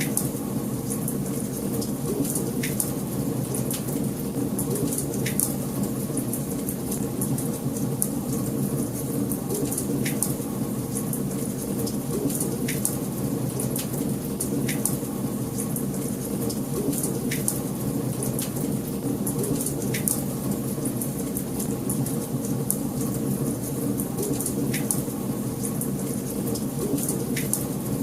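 Wood fire burning in a fireplace: a steady low rumble of flames with many sharp crackles and pops scattered throughout.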